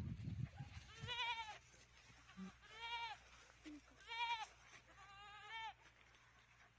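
Domestic goats bleating: four wavering calls about half a second each, spaced a bit over a second apart. A low rumble fills the first second.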